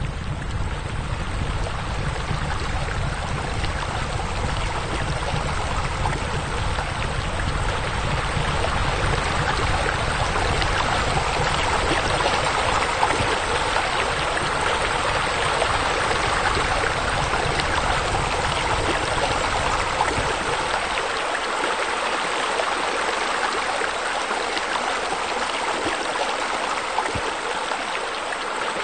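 Steady running water, like a stream or small waterfall. A low rumble underneath stops about 21 seconds in.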